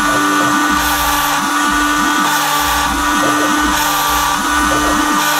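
A small CNC router's rotary-tool spindle runs with a steady whine while its cutter mills a double-sided copper-clad PCB. Under the whine come many short rising and falling whirs as the stepper motors move the head along the tracks.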